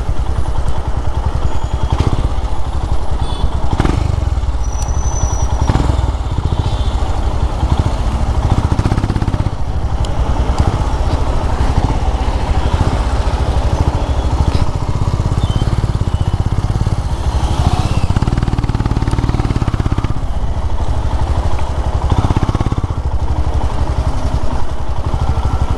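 Motorcycle engine running steadily while riding along, a continuous low drone with no pauses.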